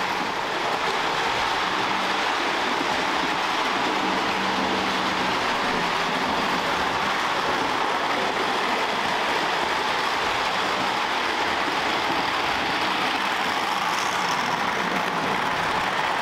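Lionel O gauge model trains running on three-rail track: a steady rolling noise of metal wheels on the rails, with a faint low hum in the first few seconds.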